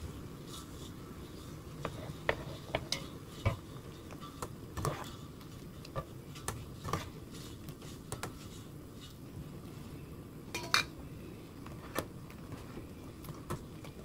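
A wire mesh strainer stirring and scooping blanched king oyster mushroom pieces out of a wok of boiling water: scattered clinks and taps of metal against the pan over the steady sound of the boiling water.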